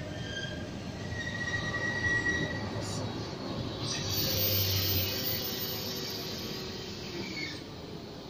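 A train rolling through the level crossing, its wheels squealing in several high steady tones over a low rumble. A hiss comes in about four seconds in and stops shortly before the end.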